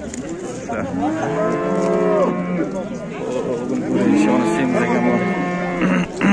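Cattle mooing: two long moos, the second longer than the first, each with a steady pitch that bends down at its end.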